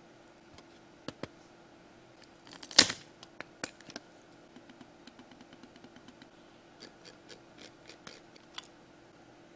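Small plastic clicks and scrapes from a Rapoo MT760 mouse being handled and taken apart, with one loud sharp crack about three seconds in and scattered lighter ticks after it.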